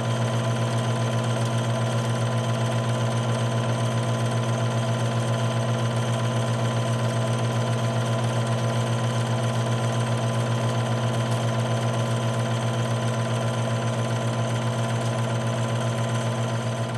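Film projector running: a steady low motor hum with a rapid, even flutter.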